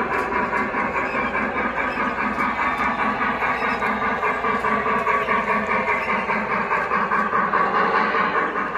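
O gauge model train, a streamlined Pennsylvania Railroad steam locomotive and tender, running past close by: a steady rumble of wheels and motor on the track with a fast, even pulse.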